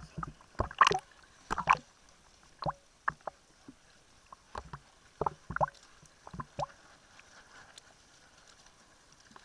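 Irregular sharp slaps and knocks from a small sailing dinghy on the water, about a dozen in all, clustered in the first two seconds and again around the middle, over a faint steady hiss.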